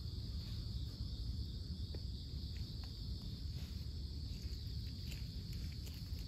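Steady high insect chirring over a low outdoor rumble, with a few faint scattered ticks.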